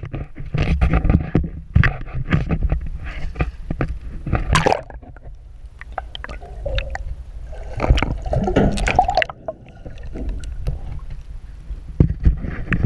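Sea water sloshing and gurgling around an action camera dipped at and under the surface, with repeated sharp knocks and bumps on the camera housing.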